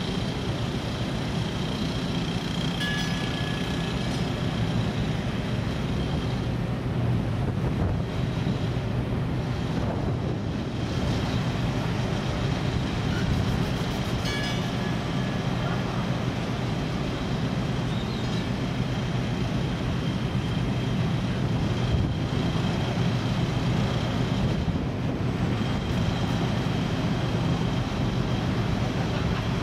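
Panama Canal electric towing locomotives ('mules') running on their rails alongside the ship: a steady low machine hum, with a thin high whine that comes and goes.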